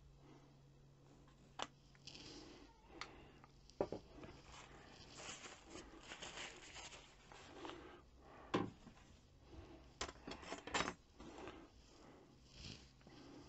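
Metal model-railway rails and track being handled on a wooden workbench: scattered light clicks and taps as rails are set down, with a quick run of clicks about ten seconds in, and a paper tissue rustling around the middle.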